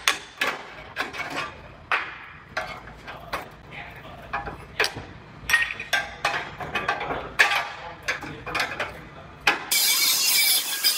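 Irregular sharp metal clicks and clanks of tools and parts being handled, then about ten seconds in a cut-off tool with a small abrasive wheel starts up with a steady, loud hiss.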